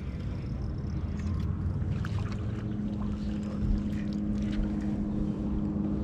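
Steady hum of a boat motor, with scattered short clicks and splashes while a hooked bass is brought to the landing net.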